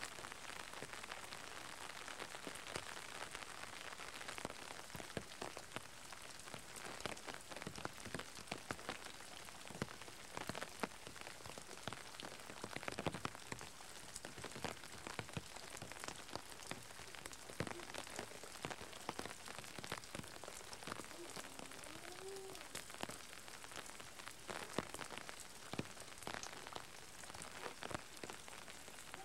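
Steady rain falling, with a constant hiss and many separate drops and drips ticking throughout.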